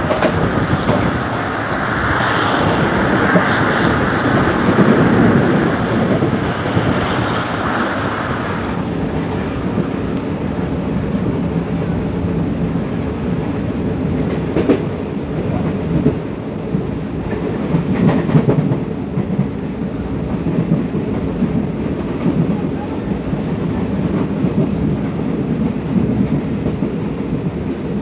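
Diesel-hauled passenger train heard from inside a carriage while running along the track: a steady rumble of wheels on rails, with a few sharp clicks over rail joints in the second half.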